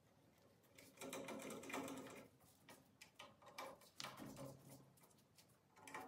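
Cordless drill running in two short bursts of about a second each, driving the screws that mount a door handle's plate, with a few light clicks between the bursts.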